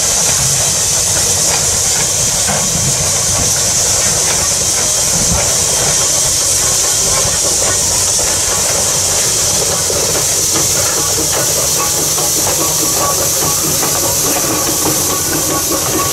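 Steam locomotive passing with its passenger train: a steady high hiss over a low rumble of the train on the rails.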